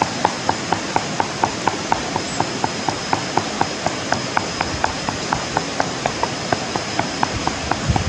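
Wooden pestle pounding in a wooden mortar, a steady rhythm of hollow knocks at about four a second, over the steady rush of a river.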